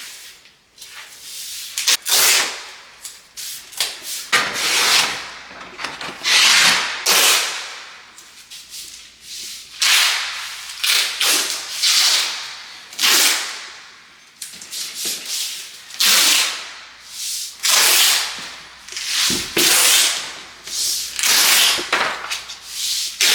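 Hand scraping or sanding strokes on drywall: rough rasping strokes repeated irregularly, about one a second.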